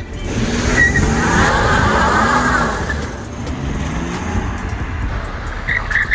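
Car engine revving up and down and accelerating hard with a rushing noise, with a short squeal near the end.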